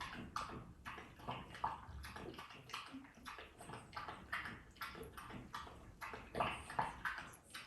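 French bulldog making quick, wet snuffling sounds, about three a second, a few louder ones near the end.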